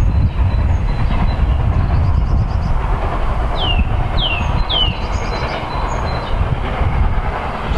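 Distant steam train approaching, a steady rumble under heavy wind on the microphone. A bird gives three short falling chirps in the middle.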